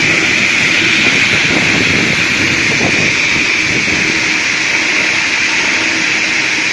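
Circular-blade round-log table sawmill ripping a log lengthwise: a loud, steady saw noise with a strong high-pitched hiss as the blade cuts through the wood.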